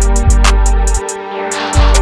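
Dark evil plugg type beat playing back. Long, deep 808 bass notes start and stop under rapid hi-hat ticks and a sustained melody.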